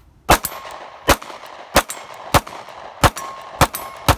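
Sig P365 9mm subcompact pistol firing a steady string of seven shots, about one every two-thirds of a second, cycling without a stoppage. Some hits set a steel target plate ringing with a short metallic ring.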